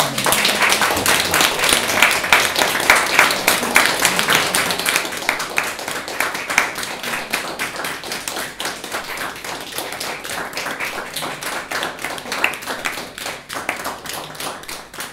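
Small audience clapping, dense and even, strongest at the start and gradually tapering off.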